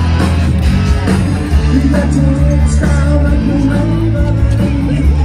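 A blues-rock band playing with a singer: steady bass notes under guitar and voice.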